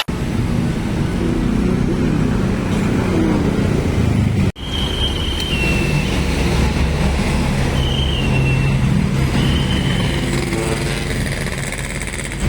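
Road traffic: vehicle engines running and passing by, with a few short high whistling tones in the middle and later part.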